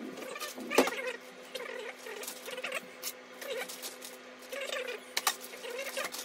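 Plastic bag crinkling and rustling as it is opened and handled, with scattered light clicks and one sharper knock about a second in, over a steady low hum.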